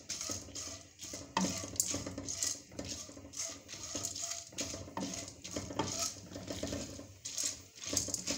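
Silicone spatula stirring unpopped popcorn kernels in oil around a stainless steel kadai, the kernels rattling and scraping against the metal in irregular strokes.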